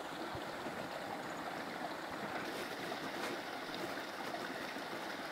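Steady outdoor background noise, an even rushing hiss, with a few faint clicks about three seconds in.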